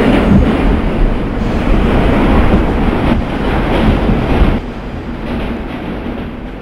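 New York City subway train running along the track, a loud steady rumble of wheels on rail that drops suddenly about four and a half seconds in and then fades away.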